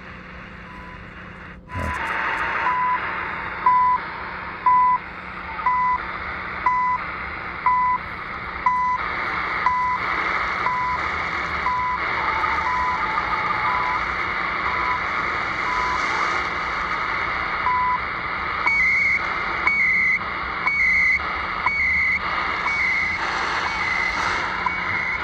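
CHU Canada shortwave time signal on 3330 kHz, heard through the XHDATA D-808 radio's speaker: short 1 kHz beeps once a second over steady static hiss. Past the middle the beeps give way to higher-pitched data chirps once a second, the station's digital time code. A click about two seconds in, after which the signal comes up louder.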